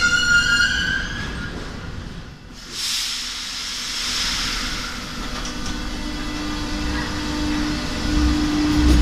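RATP MF77 metro train pulling out of a station: a high pitched tone dies away in the first second and a half, a sudden burst of air hiss comes about three seconds in, then the traction motors' hum rises and the rumble of the wheels builds as the train gathers speed.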